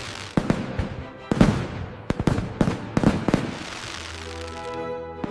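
Fireworks bursting in a rapid, uneven series of bangs, each trailing off in a crackling hiss. The bangs stop about three and a half seconds in, and a sustained chord of background music carries on.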